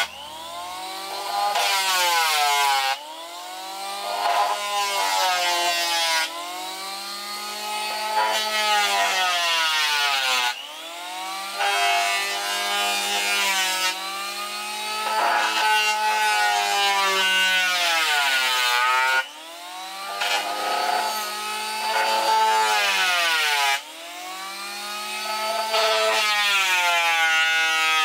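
Electric hand planer running as it is pushed along a wooden board, planing it down. Its motor whine dips in pitch as the blades bite on each pass and rises back as the load eases, over several passes with sudden jumps in level as the tool starts or lifts off.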